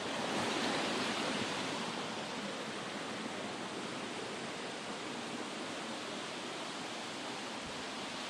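Mountain waterfall rushing loudly, running high after heavy flow, as a steady wash of falling water that is slightly louder in the first couple of seconds.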